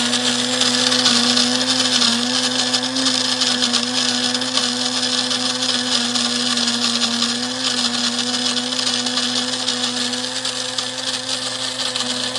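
Cuisinart DBM-8 Supreme Grind flat-burr coffee grinder running, grinding beans on its finest setting. It gives a steady motor whine over a bright, gritty hiss.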